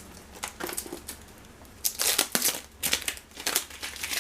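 Cardboard box and plastic packaging being handled: crinkling and rustling with light knocks, loudest in a burst about two seconds in.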